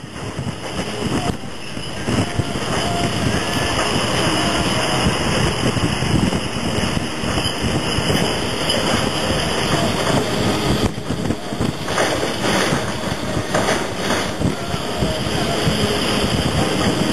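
Container truck driving, heard from inside the cab: steady engine, tyre and wind noise, with a few short knocks or rattles about eleven to fourteen seconds in.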